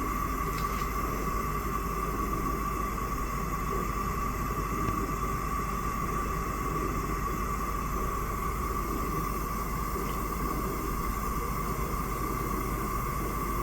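Lit gas stove burner: a steady hiss of burning gas, with a steady tone mixed in and a faint tick or two.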